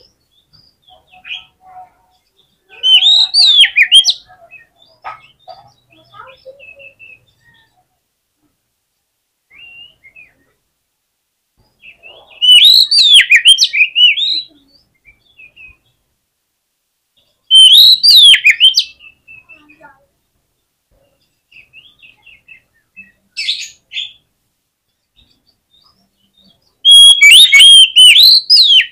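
Oriental magpie-robin (kacer) singing in aggressive full 'fighter' song: four loud outbursts of rapid, varied whistles and chirps a few seconds apart, with softer calls between them.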